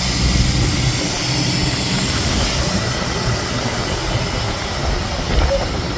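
Fishing boat's engine running steadily, a constant low rumble under a hiss of wind and water.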